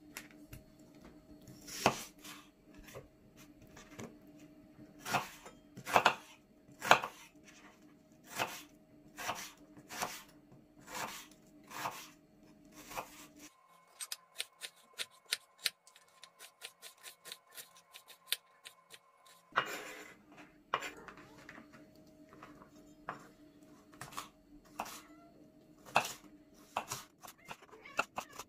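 Kitchen knife chopping onion and then peppers on a wooden cutting board: sharp knocks of the blade on the board, about one a second, with a stretch of quicker, lighter taps in the middle.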